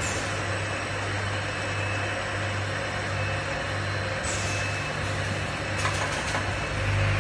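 Automatic air-blowing bottle rinsing machine running: a steady machine hum under an even hiss, with a few sharp clicks a little past the middle.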